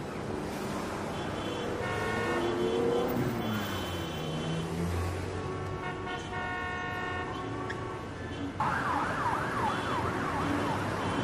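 A yelp-type siren, a fast rising-and-falling wail repeating a few times a second, starts abruptly about two-thirds of the way in, over steady background noise.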